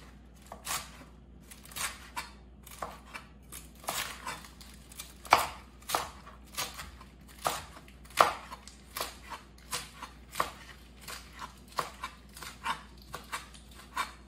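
Chef's knife chopping beet greens and stems on a plastic cutting board: a long run of sharp knocks, roughly two a second, a little uneven in pace.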